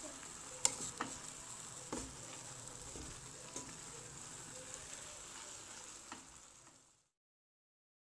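Green beans, chicken and tomatoes sizzling in a coated frying pan while a wooden spatula stirs them, with a few sharp knocks of the spatula against the pan. The sizzling fades and stops shortly before the end.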